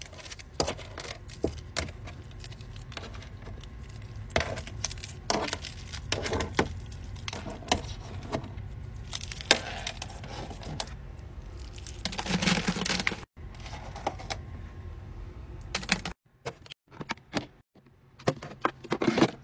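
Long acrylic nails and small hard candies clicking and tapping against a plastic drawer bottom as the candy is picked up: irregular sharp ticks, with a longer noisy stretch about twelve seconds in. Near the end, a few sparse clicks as a plastic wipes canister is handled.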